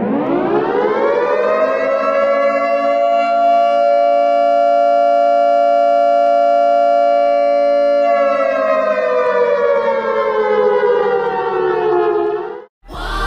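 A siren winds up to a steady wail, holds it for about six seconds, then winds slowly down in pitch and cuts off suddenly near the end.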